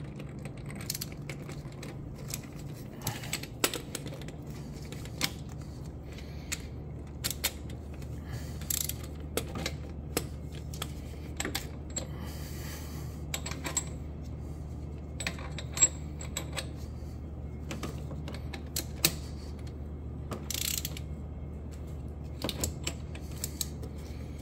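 Ratchet wrench clicking in short, irregular spurts, with metal tool parts clinking, as a fuel injector puller is turned on the engine. A steady low hum runs underneath.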